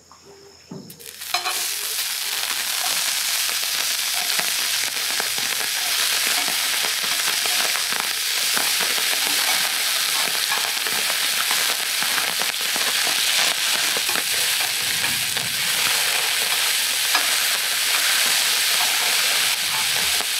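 Strips of ham frying in a hot cast-iron griddle pan: a sizzle that starts suddenly about a second in as the strips go into the pan, then carries on as a steady crackling sizzle.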